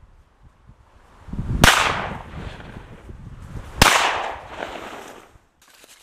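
Two gunshots about two seconds apart, each with a long echoing tail, preceded by a low rushing noise. They are a hunter's first shot at a young male wild boar and the follow-up shot fired as the wounded boar rolled and tried to get back up.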